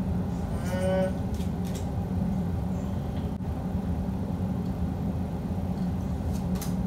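Steady low machine hum, with a brief high-pitched tone about a second in and a few faint clicks.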